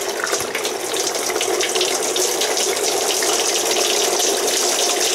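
Water from a garden hose running steadily through the cooling passages of a 1979 Evinrude 55 hp outboard powerhead during a flush, splashing as it drains out.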